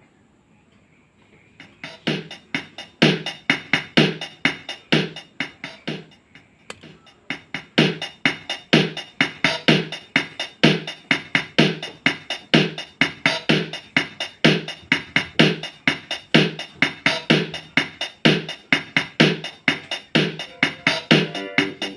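Casio HT-3000 synthesizer's built-in drum machine playing a steady rhythm pattern, starting about two seconds in and dropping out briefly about a third of the way through. Pitched keyboard chord notes join near the end.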